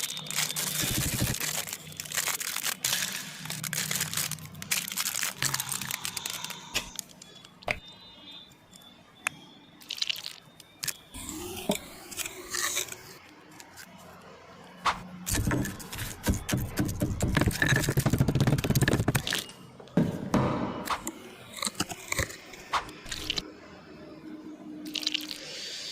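Slime being squeezed, stretched and pressed: a run of wet crackles, clicks and squelches that comes and goes, louder for a few seconds a little past the middle.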